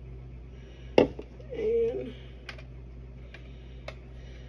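Light knocks and clicks of kitchen things being handled on a counter, the sharpest knock about a second in and a few faint ticks after it, with a brief hummed sound from a voice midway.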